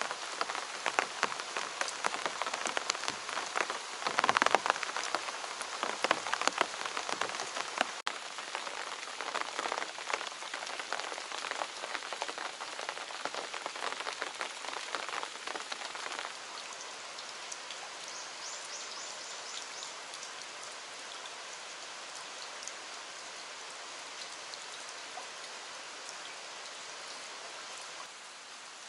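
Rain falling. For the first half or so, close, heavy drops patter irregularly over the steady downpour. A little past halfway it changes to an even, steady rain hiss without the loud drops.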